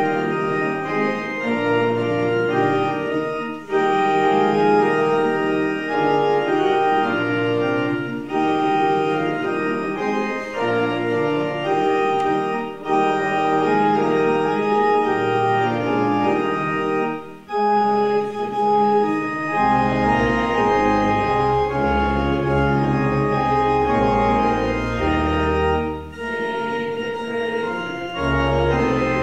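Church organ playing slow, held chords in phrases, with brief pauses between them. Deep pedal bass notes come in about two-thirds of the way through.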